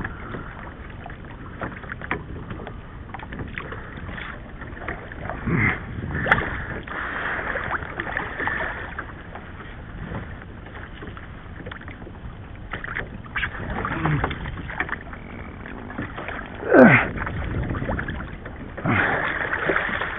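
Water rushing and slapping against the hull of a plastic fishing kayak as a hooked kingfish tows it along, with wind on the microphone. A few louder falling whooshes of water stand out, the loudest a little before the end.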